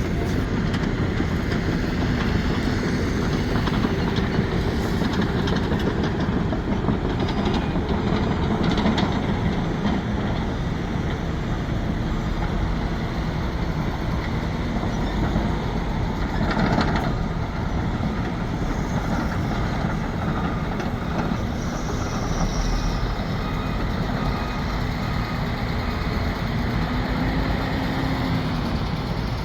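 Sumitomo SH370LHD-6 excavator running steadily, with a few knocks and clanks several seconds in and a short louder burst about seventeen seconds in.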